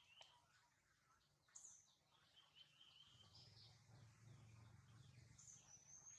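Near silence with faint bird calls: thin, scattered whistles and chirps, with a longer whistle near the end.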